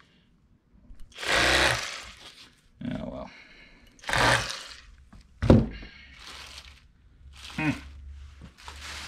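Bubba electric fillet knife buzzing in short bursts of about a second as its blades saw through crappie fillets, with a sharp knock about halfway through.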